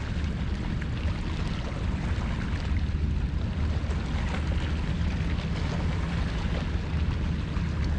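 Steady low rumble of wind on the camera microphone, with water lapping against a kayak hull.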